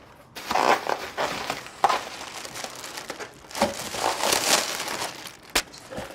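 Packing material rustling and crinkling as it is pulled from a cardboard shipping box, in irregular bursts with a sharp click about five and a half seconds in.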